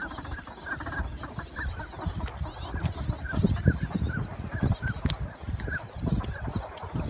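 A flock of northern pintail ducks calling: many short, clipped calls, one after another and overlapping, over a steady low noise.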